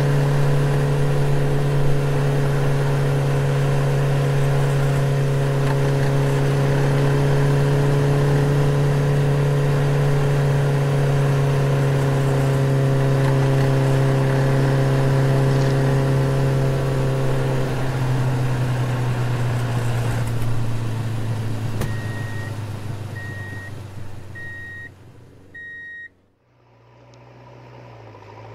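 Steady car engine hum, a recorded sound effect laid over toy cars rather than a real engine, running evenly and then thinning out about two-thirds of the way through. Near the end, four short high beeps about a second apart, then the sound fades away.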